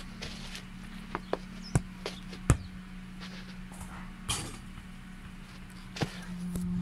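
A football being kicked and struck on a lawn: a scatter of short sharp knocks, the loudest about two and a half seconds in, over a steady low hum.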